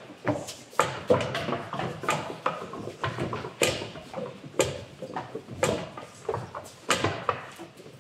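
A series of irregular knocks, clatters and thuds, one to three a second, each with a short ring.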